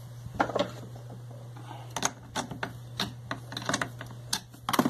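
Irregular clicks and knocks as hands handle the hoses and plastic housing around a chainsaw's carburetor, over a steady low hum.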